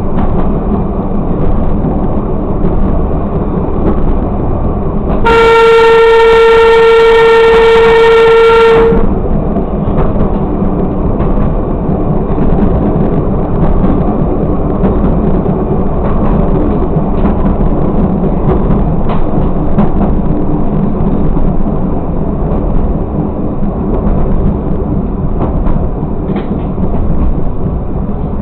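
Railcar running slowly along the track, heard from the cab, with one long single-note horn blast of about three and a half seconds starting about five seconds in.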